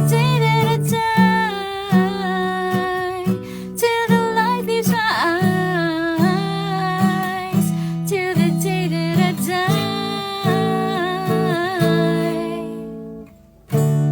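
Music: a plucked acoustic guitar under a wordless hummed vocal melody. It fades out briefly about 13 seconds in, then comes back.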